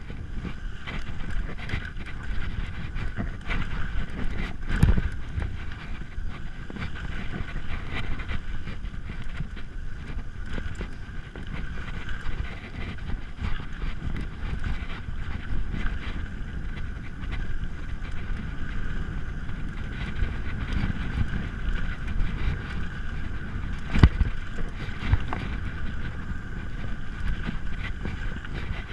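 Mountain bike riding down a rough dirt singletrack: wind buffeting the microphone over the steady rumble and rattle of the tyres and bike on the trail. Sharp knocks from bumps stand out about five seconds in and again a few seconds before the end.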